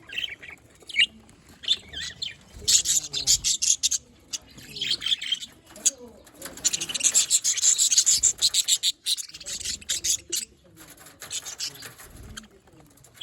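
Several budgerigars chirping and chattering in bursts of rapid high chirps, busiest about three seconds in and again around the middle.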